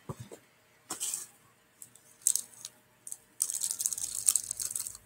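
Clear plastic packaging bag crinkling as it is handled: a few short rustles, then steady crinkling over the last second and a half.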